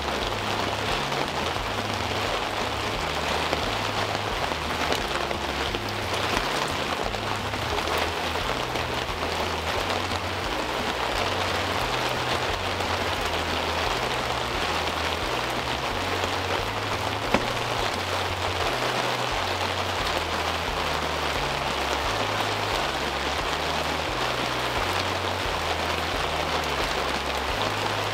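Steady rain falling, an even hiss of drops, with the low notes of a background music bass line moving underneath. One sharp tick a little past the middle.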